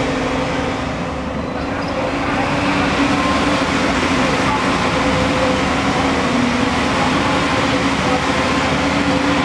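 JCB tracked excavator's diesel engine and hydraulics running under load with a steady hum as it lifts and swings a full bucket of soil, getting a little louder about two seconds in.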